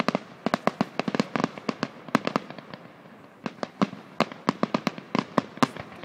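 Fireworks going off: a rapid, irregular string of sharp pops and bangs, several a second, with a brief lull about three seconds in.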